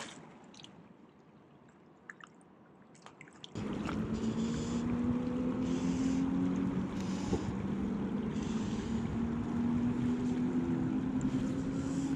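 Quiet at first with a few faint clicks. About three and a half seconds in, a steady rush of river current along a gravel bank comes in, together with a steady engine-like drone whose pitch drifts slightly.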